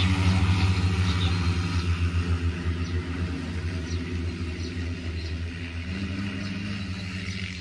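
JT16L multirotor agricultural spray drone's propellers and motors humming steadily at a low pitch, growing gradually quieter as it flies off.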